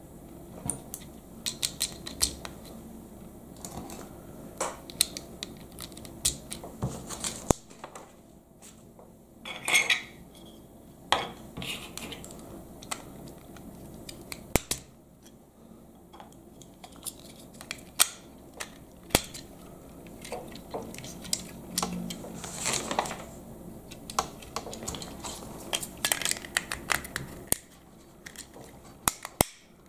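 LEGO plastic bricks clicking and clattering as pieces are handled and pressed together onto a model, in scattered sharp clicks, some in quick runs.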